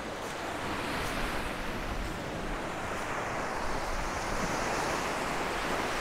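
Small waves of a rough freshwater lake washing and breaking over shore rocks, a steady rushing wash.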